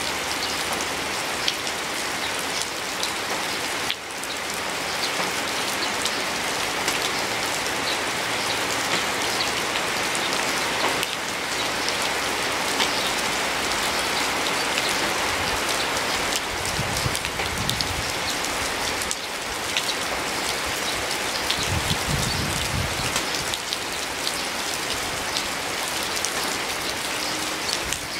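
Steady rain pattering on a surface, with many close drops ticking. Two brief low rumbles come in the second half.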